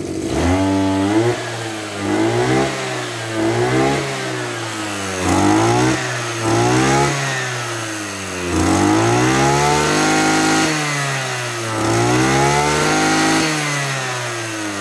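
Two-stroke engine of a Tanaka CB2500S brush cutter running off load and being revved repeatedly, its pitch sweeping up and back down about eight times, with a couple of longer held high revs in the second half. It picks up revs sharply, which the owner puts down to its automatic carburettor.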